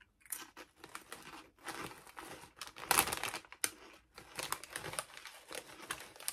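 Foil-lined potato chip bag crinkling as a hand reaches in and moves it, along with the crunching of potato chips being chewed. The crackling comes in irregular bursts and is loudest about three seconds in.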